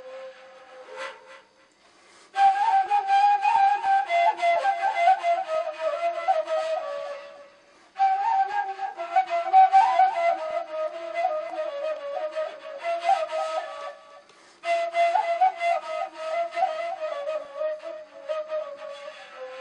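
A flute playing an ornamented melody in three long phrases, each drifting downward in pitch, with short gaps between them.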